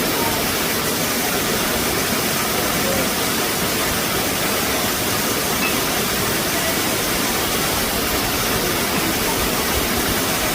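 Waterfall: water falling and rushing in a steady, unbroken wash of noise.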